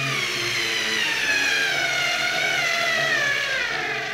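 Multilaser Home H0063 4.8 V cordless screwdriver driving a large screw into pre-drilled wood: a steady motor whine whose pitch slowly falls as the screw goes in and the load builds.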